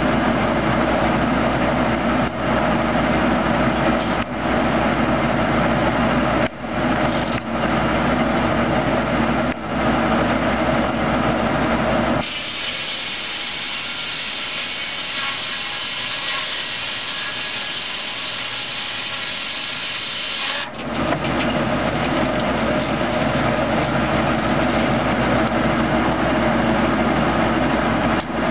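Tractor-PTO-driven 1970s Foley Belsaw circular sawmill running steadily. From about twelve to about twenty-one seconds in, the sound turns to a higher hiss without the low hum as the big blade cuts through a log.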